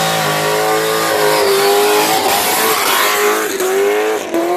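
A car doing a burnout: engine held at high revs while the tires squeal on the pavement, the pitch wavering and dipping a few times.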